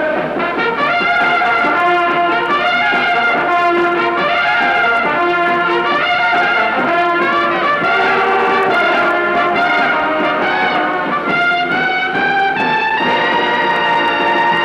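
Brass ensemble music, trumpets and trombones playing a lively melody that settles onto a long held chord near the end.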